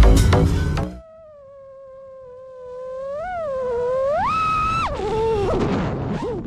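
Music with a heavy beat stops about a second in. Then comes the whine of an FPV quadcopter's motors: one pitched tone that climbs with throttle past the middle, holds high for a moment, then drops and wavers.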